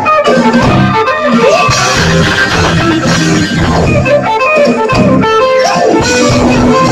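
Rockabilly band playing live through a stage sound system, with electric guitar, upright bass and drums.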